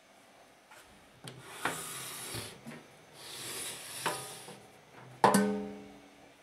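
Microwave oven's sheet-metal casing being slid and turned on a table: two scraping rubs, then a sharp knock about five seconds in that rings briefly as it dies away.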